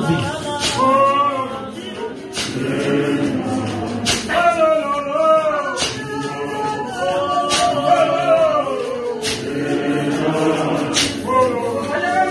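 Church congregation singing a hymn together without instruments, with a sharp percussive beat about every second and a half keeping time.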